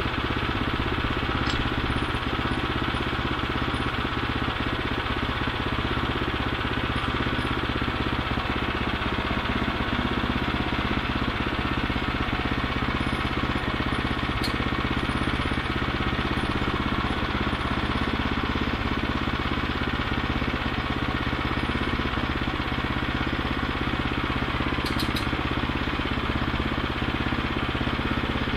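The gas engine of a Woodland Mills bandsaw mill running steadily at an even speed.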